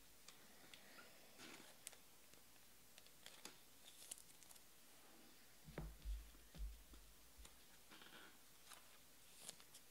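Near silence with faint scattered clicks and small handling noises, and a few soft low thumps about six seconds in.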